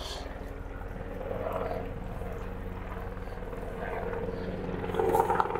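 Steady low hum of running motor-driven equipment, with a light splash as a cupful of powder is tossed into the pool water near the end.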